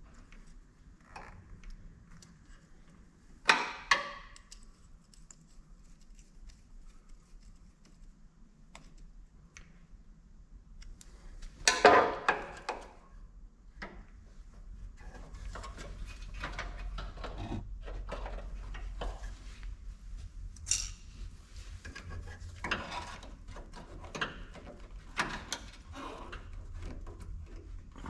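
Hands working on a mower's fuel line and hose clamps: scattered metal clinks and knocks, two louder clanks near 4 s and 12 s, with low rumbling handling noise in the second half.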